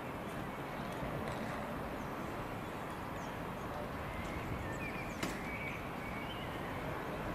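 An LNER Azuma train running slowly into the station: a steady rumble of wheels on the track, with a single sharp click about five seconds in.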